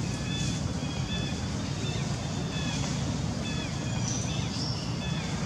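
Small birds chirping repeatedly in short, high calls over a steady low rumble of outdoor background noise, with a brief higher whistle about four seconds in.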